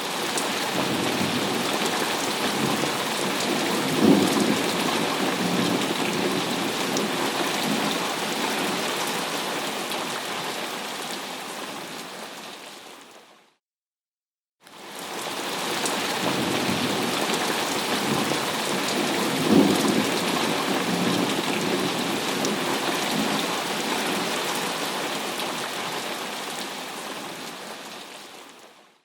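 Thunderstorm sound effect: steady heavy rain with rumbling thunder. It is a loop of about fourteen seconds that fades out to a second of silence halfway through and starts again, with a sharp thunder peak at the same point in each pass.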